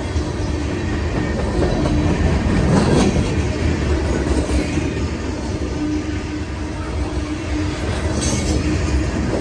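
Coal hopper cars of a freight train rolling past, steel wheels clattering over the rails with a steady rumble. A louder clatter comes about three seconds in, and a low hum comes and goes.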